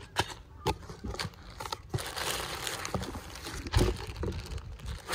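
Clear plastic packaging bag crinkling and rustling as a folded inflatable is handled and lifted out of a cardboard box. There are scattered sharp crackles in the first couple of seconds, then a denser, steadier crinkle.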